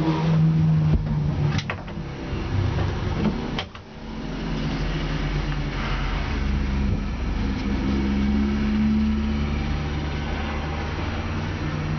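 BMW E30 race car's straight-six engine running at low revs, heard from inside the stripped, caged cabin, with a brief dip in level about three and a half seconds in.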